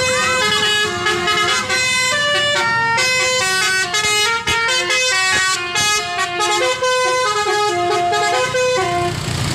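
Bus basuri horn, a set of roof-mounted trumpet horns, playing a telolet melody of quick stepped notes, one after another, with short breaks.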